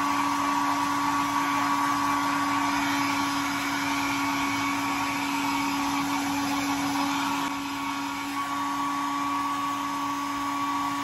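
Handheld hair dryer running steadily on wet hair: a constant motor hum over rushing air, a little quieter from about seven and a half seconds in.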